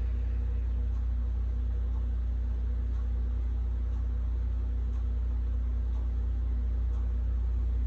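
A steady low hum with a faint buzz above it, unchanging.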